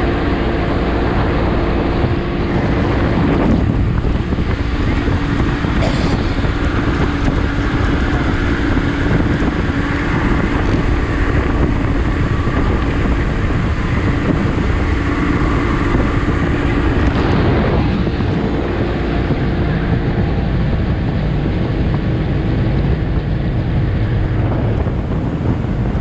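1999 Evinrude FICHT 150 two-stroke outboard running steadily with the boat underway, wind buffeting the microphone over the engine note. The engine sounds healthy, running clean.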